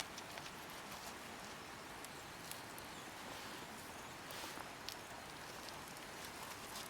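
Campfire crackling faintly: scattered sharp pops and ticks over a steady low hiss.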